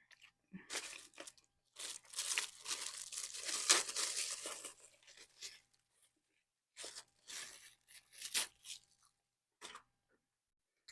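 Close-up eating sounds: crunchy bites and chewing of a chickpea veggie burger with raw lettuce, onion and pickles, in two long crackling stretches with a short pause between them, then a single click near the end.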